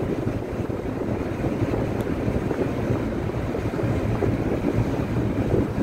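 Steady rumble and road noise of a moving road vehicle, with wind buffeting the microphone.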